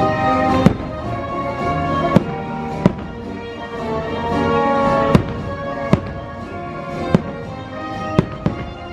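Fireworks shells bursting, about eight sharp bangs at uneven intervals, over orchestral show music.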